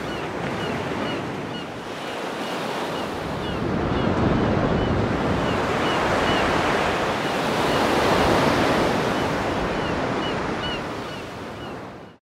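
Ocean surf breaking and washing up a sandy beach among rocks, the wash swelling and ebbing twice, with a faint high chirp repeating about twice a second. It fades out near the end.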